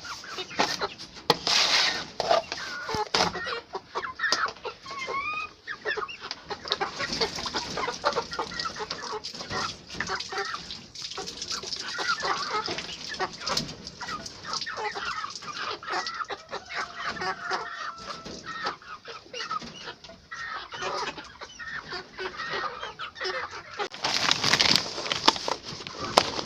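A flock of local chickens clucking and calling continuously, many birds at once. Two short, louder bursts of noise come about two seconds in and near the end.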